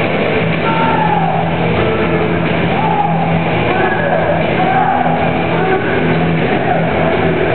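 A section of football supporters singing a chant together, many voices at once in a loud, continuous din, with a steady low hum underneath.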